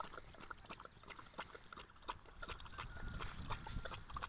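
A dog and a cat lapping milk from a shared saucer: a run of quick, irregular wet tongue clicks, several a second.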